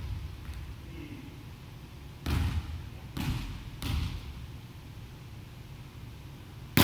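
A volleyball bounced three times on a wooden gym floor, followed near the end by one sharp, loud smack of a hand striking the ball on a serve, ringing on briefly in the hall.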